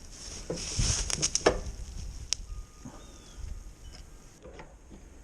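Hand-work handling noise: rustling and a quick run of light clicks, then a single sharp click about two seconds in, as a small washer is fitted onto the mini bike's front fork bolt.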